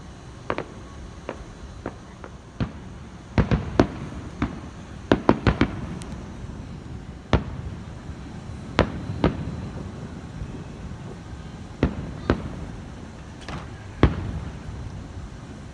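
Fireworks going off: about twenty sharp bangs at irregular intervals, some single and some in quick clusters a few seconds in, over a steady low background din.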